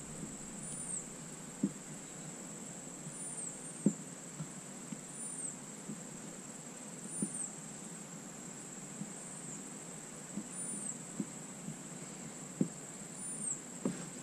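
A few faint taps and scrapes as a soldering iron is worked into a crack in a high-density polyethylene kayak hull, over a steady high-pitched insect drone with short chirps every second or two.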